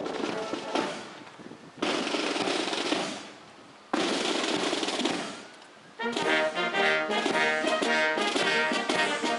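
Military band: the music dies away, then two sudden loud percussion hits about two and four seconds in, each holding briefly and fading. The band with brass starts playing again about six seconds in.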